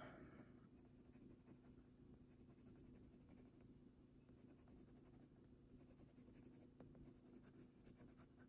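Faint scratching of a Faber-Castell Polychromos coloured pencil on a coloring-book page, in repeated short runs of quick back-and-forth strokes.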